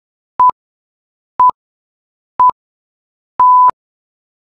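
Countdown timer beeps: three short electronic beeps a second apart, then one longer beep about three and a half seconds in, marking the end of the rest and the start of the next exercise.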